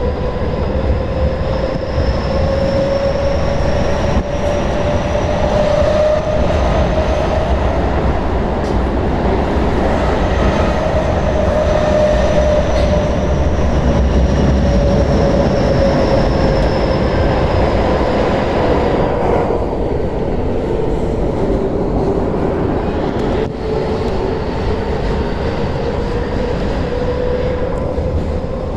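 Keio 9000 series electric train running at speed through a subway tunnel, heard from inside the car. There is a steady wheel-and-rail rumble, and over it a whine that slowly rises and then falls in pitch. About two-thirds of the way through, the higher hiss fades.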